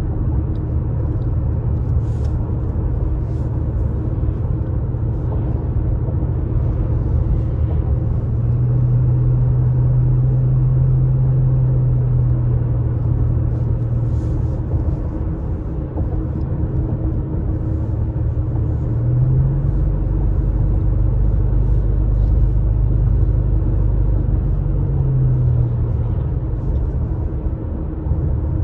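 A car driving on a paved road, heard from inside the cabin: a steady low rumble of engine and tyres. The engine hum rises in pitch about two-thirds of the way through and drops again near the end.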